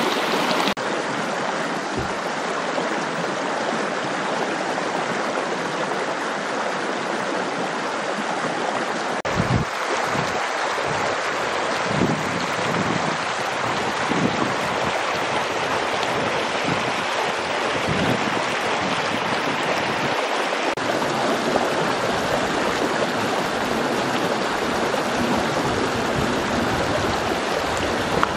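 Steady rushing of running water, like a stream, with occasional short low thumps from about a third of the way in.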